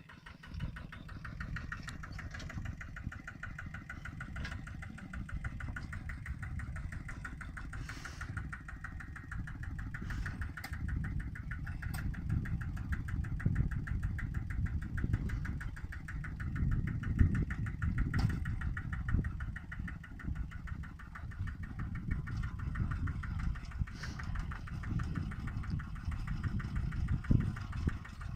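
A small engine running steadily, with a fast even beat and an uneven low rumble beneath it.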